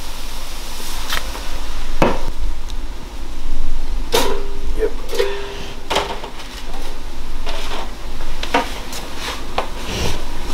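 Kitchen clatter: a string of sharp knocks and clinks from a nonstick frying pan, utensils and dishes being handled on the stove and counter, with two brief squeaky tones near the middle.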